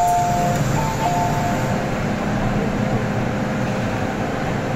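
MTR M-train door chime: a high-then-low two-tone chime sounding twice as the doors open, over the steady rumble and hiss of the train and station platform.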